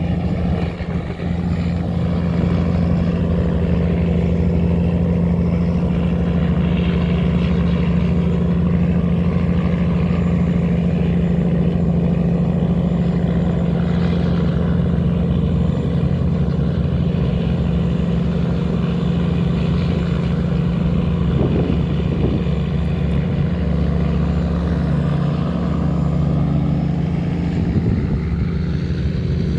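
Diesel engines of river tugboats running steadily under load while towing barges upstream against a strong current.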